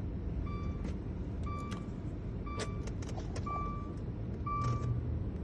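A short electronic chime repeating about once a second, with a few sharp clicks of buttons being pressed on a key programming tool in between, over a steady low hum.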